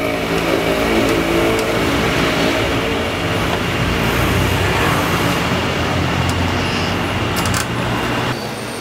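Street traffic: a motor vehicle's engine running close by over general road noise, with a couple of sharp clicks about seven and a half seconds in. The sound drops off sharply near the end.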